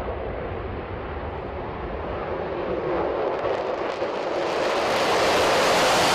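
Formation of four F-16 fighter jets taking off, their jet engines making a steady roar that grows louder and brighter over the last three seconds as the jets climb close past.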